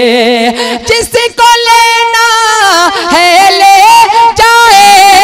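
A man singing a naat into a microphone, in long ornamented notes that waver up and down. There is a short break about a second in, and a steady held note near the end.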